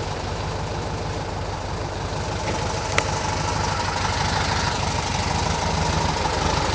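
1958 VW Beetle's air-cooled flat-four engine idling with a steady rhythm, growing slightly louder toward the end. There is a single sharp click about three seconds in.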